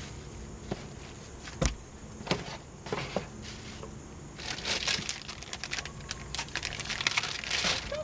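Plastic garbage bags and cardboard rustling and crinkling as someone rummages by hand through a dumpster, with a few sharp knocks in the first half and denser, continuous crinkling from about halfway through.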